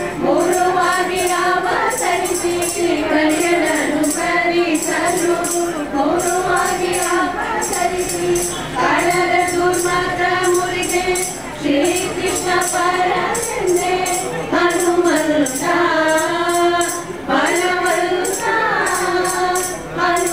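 A women's group singing a devotional bhajan together into microphones, with a steady jingling percussion beat keeping time.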